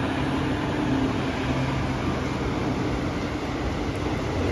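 WAG-5 electric locomotive passing slowly at close range while hauling a passenger train, with a steady electrical hum over the rumble of its running gear.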